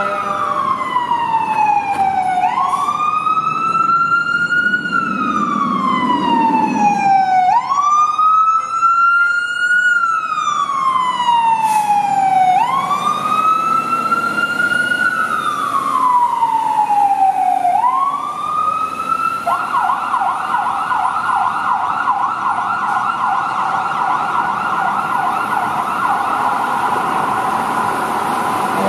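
Fire engine siren wailing, each cycle rising quickly and falling slowly over about five seconds, then switching about twenty seconds in to a rapid yelp that holds to the end.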